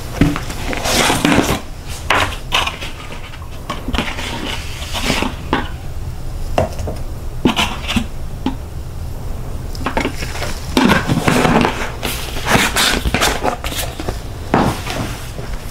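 Dishes and cutlery clattering as they are handled in a kitchen: a string of irregular clinks and knocks, sparser for a few seconds in the middle and busier again after it.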